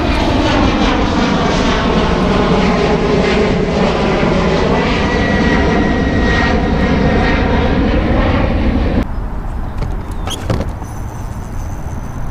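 An engine running loudly and steadily, its pitch sagging and then rising again. It cuts off abruptly about nine seconds in, leaving a quieter background with a few light clicks.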